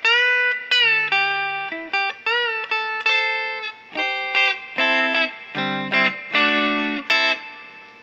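Electric Stratocaster-style guitar with Wilkinson Vintage Voice Alnico V single-coil pickups, played as a lick of single notes and double-stops with several bent notes and a few chords, the last notes ringing out near the end.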